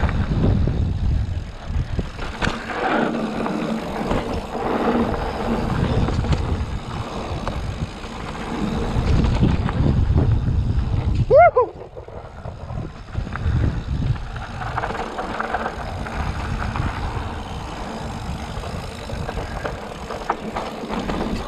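Mountain bike riding down a dirt singletrack: a rough, uneven rumble of tyres and wind, with clicks and rattles over bumps. A short squeak comes about halfway through.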